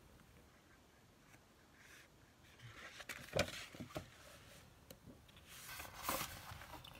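Sheets of patterned scrapbook paper being handled and turned over: a few light taps and rustles, then a longer paper swish about six seconds in.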